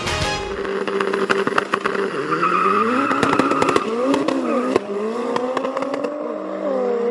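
Drag-racing cars accelerating hard down the strip. The engine note climbs through the gears and drops at the shifts, about five and six and a half seconds in, with sharp pops through the first few seconds.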